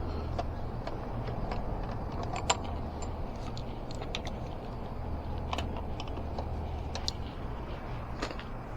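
Scattered light clicks and small clatters of scrap bits being handled, over a low steady hum.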